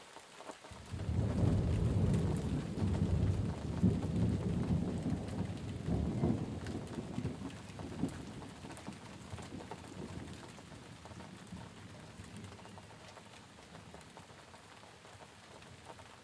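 Rain pattering steadily, with a long low rumble of thunder that rolls in about a second in and slowly fades away over the next ten seconds.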